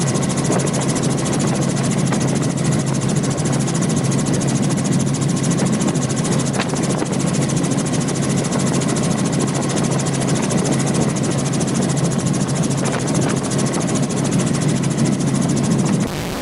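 A loud, steady engine drone with a fast, even pulse, cutting off abruptly near the end.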